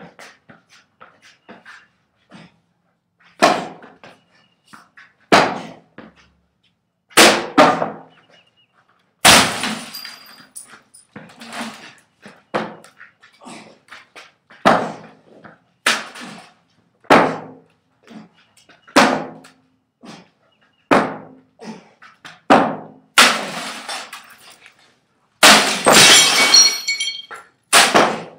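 A long-handled hammer strikes a hanging box again and again, more than a dozen hard blows one to two seconds apart, each a sharp crack with clattering as the box breaks up. The last few blows are the loudest and set off a metallic rattle and ringing.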